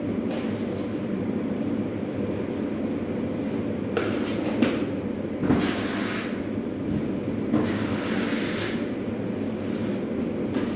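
A steady low mechanical hum, with short hissing noises about four, six and eight seconds in.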